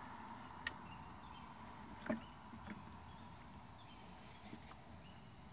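Faint outdoor evening ambience with a steady high-pitched insect drone, broken by two sharp knocks about a second and a half apart, the second louder.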